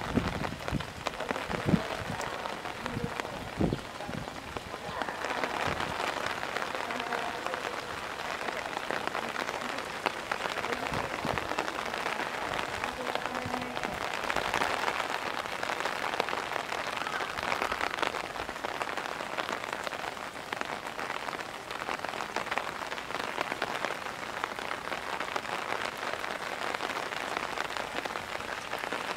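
Heavy rain pouring steadily onto hard surfaces, with a few louder taps in the first few seconds.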